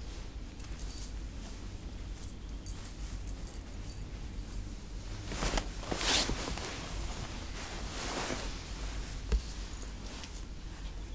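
Bedding and sheets rustling as a person climbs onto a bed, in two broad swishes a little past the middle, over a low steady room hum, with a single sharp click near the end.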